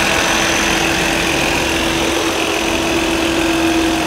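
Peterbilt semi truck's diesel engine idling steadily and, for a big rig, very quietly.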